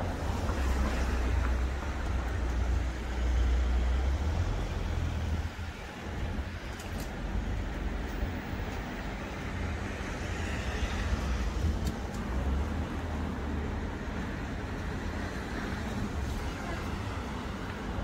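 Street traffic: cars passing, a steady low rumble of engines and tyres that is loudest in the first few seconds.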